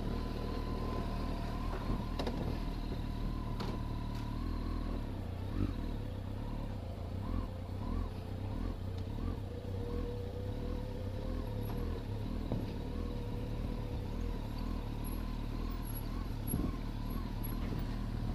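Kawasaki ZX-12R's inline-four engine running steadily at low speed, with small knocks now and then.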